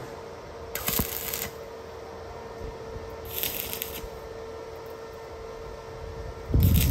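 Stick (arc) welder laying short tack welds on a metal-pipe frame: three brief bursts of crackling arc, about a second in, just past three seconds, and near the end, over a steady hum.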